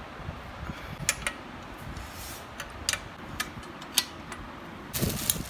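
Adjustable wrench working a steel nut and bolt on an air-conditioner wall bracket: scattered sharp metal clicks, about half a dozen, with a short scraping rattle near the end.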